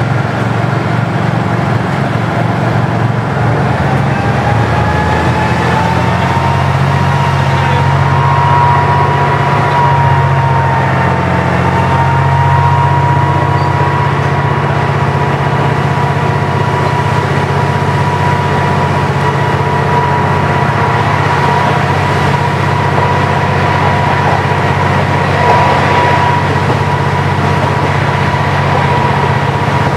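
KiHa 40 diesel railcar running under power with a steady engine drone. A whine rises in pitch over the first several seconds and then holds steady.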